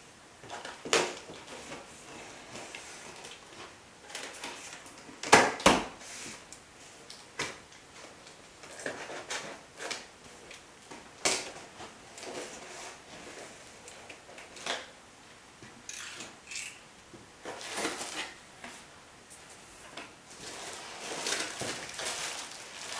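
Scattered knocks, clunks and scrapes of drum sander parts and packing being handled and set down on a table-saw top. Two louder knocks come close together about five seconds in, and there is a longer rustle near the end.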